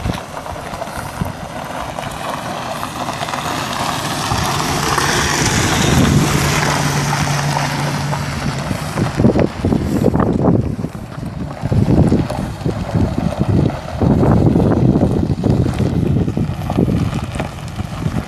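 A 1994 Ford F150's 4.9-litre inline-six pickup drives past on gravel. Its engine hum and tyre noise swell to a peak about five or six seconds in, then fade as it pulls away. From about halfway, gusts of wind buffet the microphone.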